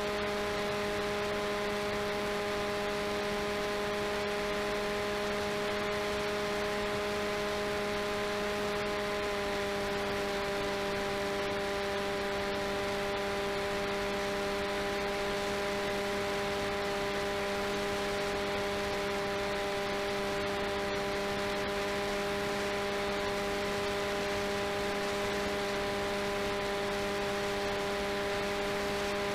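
Brushless outrunner motor (RCTimer 5010 630KV on 4S LiPo) driving a delta wing's propeller in steady cruise: an even whine with several overtones over a constant hiss of rushing air, picked up by the onboard camera's microphone. The pitch shifts slightly about nine seconds in.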